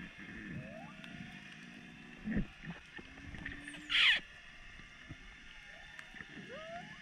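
Underwater sound of whale song: a series of low moans that slide up and down in pitch, with a louder, brief high cry about four seconds in, over a faint hiss and scattered clicks.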